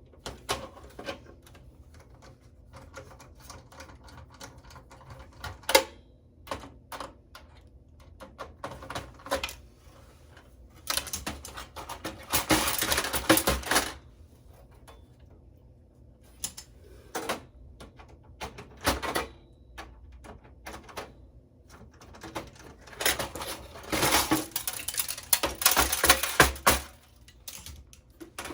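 Clicks and clatter of metal and plastic computer parts being handled during hand disassembly, with screws being taken out of a motherboard; two longer stretches of dense rattling, about eleven seconds in and again about twenty-three seconds in.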